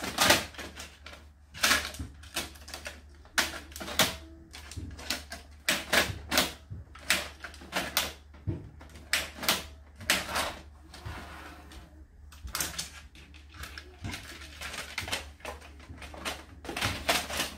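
The plastic paper cassette of a Canon PIXMA TS5120 printer being pushed in and pulled out by hand: irregular plastic clicks and clacks with a short sliding scrape, the tray catching and getting stuck as it goes in.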